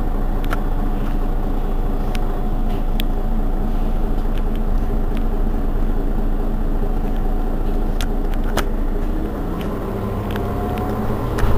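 Mercedes-Benz Citaro city bus's rear-mounted engine idling steadily, with a few sharp clicks. Near the end the sound dips a little and a rising whine comes in.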